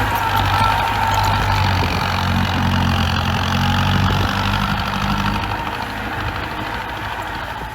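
Bulldozer's diesel engine running steadily, a low even hum, with a faint whine in the first couple of seconds.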